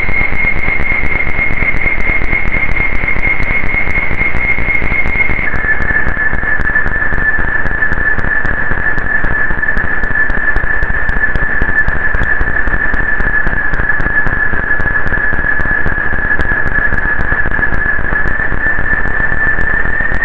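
Roland AIRA Compact S-1 synthesizer playing a dark ambient drone: a loud wash of noise with a steady high whistling tone that steps down in pitch about five seconds in and creeps slightly back up near the end, over scattered faint crackles.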